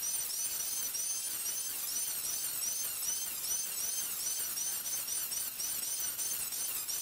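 Electric hand planer cutting a timber keel's leading edge: a high motor whine that dips in pitch and recovers about three times a second as short strokes load the cutter, over a hiss of cutting.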